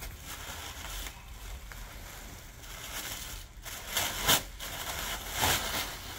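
White packing wrap rustling and crinkling as it is stripped off a machine gun by hand. There is a louder rustle about two thirds of the way through and another near the end.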